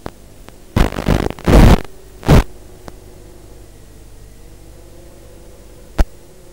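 Steady hiss with a faint wavering hum, broken by loud, rough bursts of noise from about a second in to about two and a half seconds as the 6-inch FPV quadcopter comes down into the grass. A single sharp click near the end.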